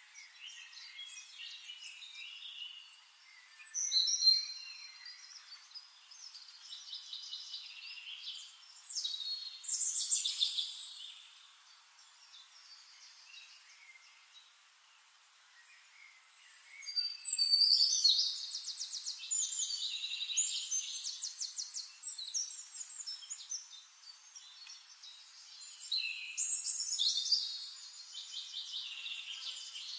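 Songbirds singing: high chirps and rapid trills in bursts, with a lull in the middle and the busiest singing a little past halfway.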